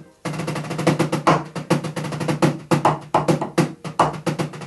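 Drumsticks playing fast strokes and short rolls on the acoustic mesh head of a Roland PD-140DS digital snare that is not connected to anything, giving a quick dry tapping with a low ring under it. The head is stock and untuned. The playing starts about a quarter second in.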